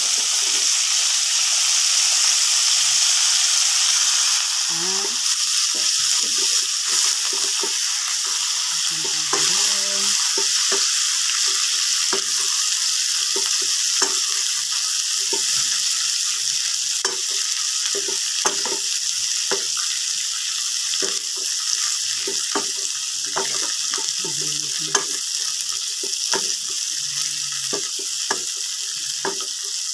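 Green beans sizzling in hot margarine in a metal wok, a steady hiss that is strongest in the first few seconds after they go in. A wooden spatula clacks and scrapes against the pan again and again as the beans are stirred.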